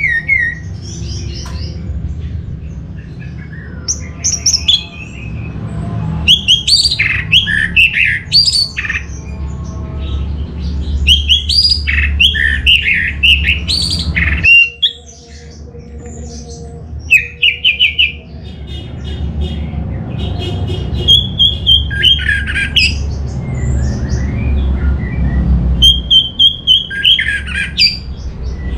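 Orange-headed thrush singing: bouts of fast, varied whistled and chattering phrases broken by short pauses, over a low steady background rumble.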